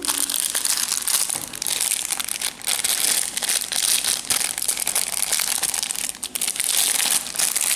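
Thin clear plastic packaging bag crinkling and crackling close up as hands handle it and work out the small plastic toys inside. The crinkling is constant, with a few short pauses.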